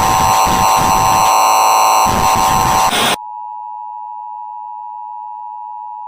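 Simulated broadcast interference: loud harsh static laced with a buzzing electronic tone, cutting off suddenly about three seconds in to a single steady electronic sine tone.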